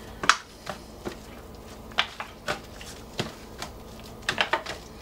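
Gloved hands turning raw chicken thighs over in a disposable aluminium foil pan: irregular sharp crinkles and taps from the thin foil as the pieces are moved.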